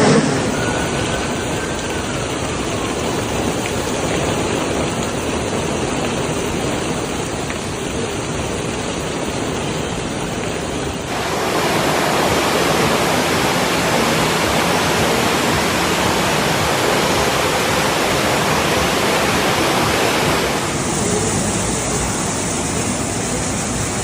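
Heavy rain pouring down, a steady rushing hiss. The sound shifts abruptly about eleven seconds in and again near twenty seconds, becoming louder and brighter in between.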